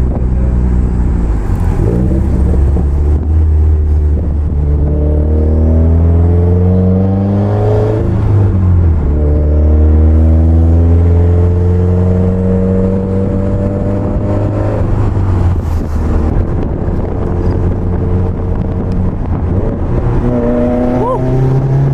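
Turbocharged flat-four of a 2020 Subaru WRX with a Grimmspeed Stage 2 intake, J-pipe and dyno tune, pulling hard under acceleration. The engine note rises in pitch, breaks off at a gear change about eight seconds in, rises again, runs steadier, then climbs once more near the end.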